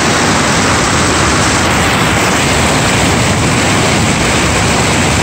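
Whitewater river rapids rushing over and between boulders: a loud, steady rush of water.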